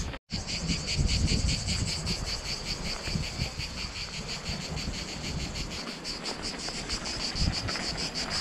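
Chorus of insects singing in the summer heat: a high, pulsing buzz that beats about five times a second without letting up, over a low rumble.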